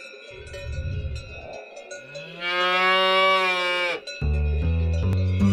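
A dairy cow moos once, a long call that rises slightly in pitch and is held for about two seconds, over a light tinkling of bells. Music with a steady bass line comes in about a second after the moo ends.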